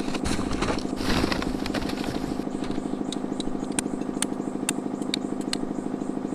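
An engine running steadily at an even pitch, with a short hiss about a second in and a scatter of sharp clicks or small cracks in the middle.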